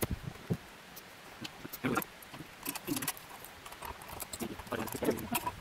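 Irregular metallic clicks and clinks of a hand wrench tightening the bolts on a solar panel's mounting brackets.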